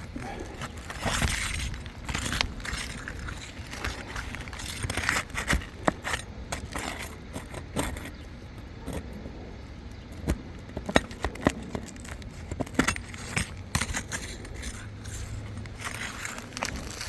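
A damaged roof shingle being pried and worked loose: irregular scraping with scattered sharp clicks and cracking strokes, several of the sharpest around the middle and in the last few seconds.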